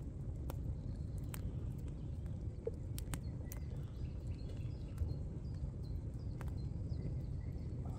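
Open wood fire crackling: scattered sharp pops over a steady low rumble, with birds chirping faintly.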